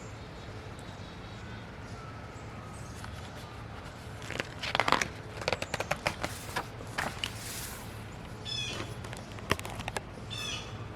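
Outdoor ambience: a steady low background rumble, with a cluster of rustling and clicking noises in the middle and a short chirping bird call near the end.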